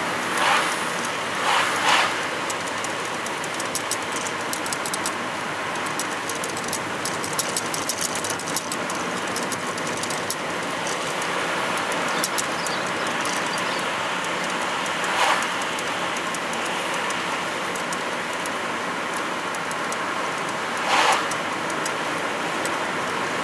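Steady road and engine noise inside the cabin of a car towing a caravan at road speed, with a few short louder swells, one of them as an oncoming van passes about half a second in.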